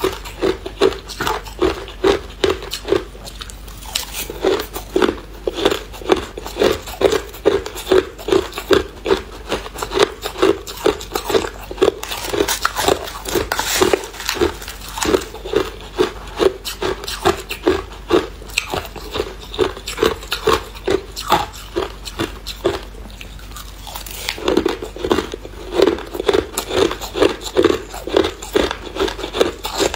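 Close-up chewing of hard clear ice: a steady run of crunches about twice a second, with a short lull about three-quarters of the way through.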